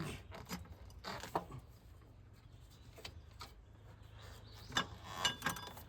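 Scattered light clicks and metal knocks from hand tools working on the engine while the serpentine belt is refitted and a half-inch ratchet is set on the belt tensioner. There is a faint low hum underneath.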